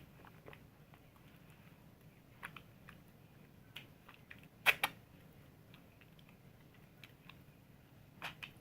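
Soap being handled and lathered, making scattered soft clicks and taps, with a sharper double click about halfway through.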